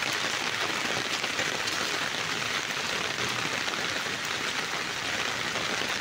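Heavy rain falling steadily, a dense even hiss with no breaks.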